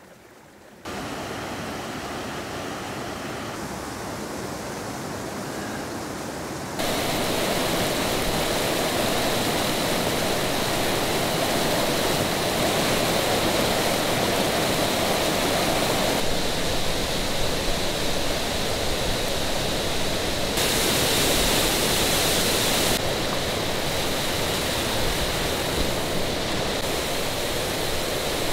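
Rushing mountain stream and cascading white water: a steady rush, quieter for the first few seconds and then much louder from about a quarter of the way in, stepping up and down abruptly a few times.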